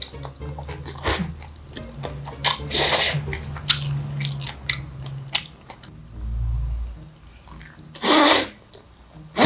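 Close-miked eating sounds: black bean (jjajang) sauce and rice slurped off a wooden spoon in two loud bursts, about three seconds and eight seconds in. Soft chewing and small clicks come in between, over a low steady hum.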